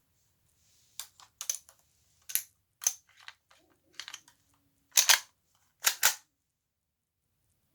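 Airsoft HK P30 pistol being reloaded by hand: a string of separate clicks and clacks of the magazine and slide being worked, ending in two loud sharp double clacks about five and six seconds in.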